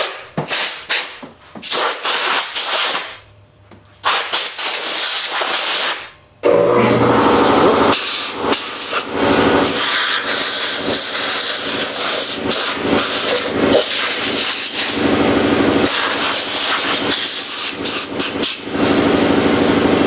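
Compressed air hissing from a hand blow gun in a series of short blasts, blowing off a freshly degreased engine cylinder block. About a third of the way in, a shop air compressor starts and keeps running with a steady hum while the blasts go on.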